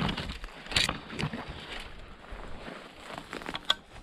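Footsteps and branches brushing and scraping as someone pushes through dense forest undergrowth, with a few sharp snaps, the loudest about a second in.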